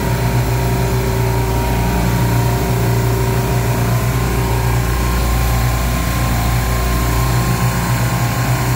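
Commercial refrigeration rack's Bitzer semi-hermetic compressors running: a loud, steady mechanical hum with a deep low drone that does not change. A freshly replaced compressor is among them, running on its own and pulling suction pressure down.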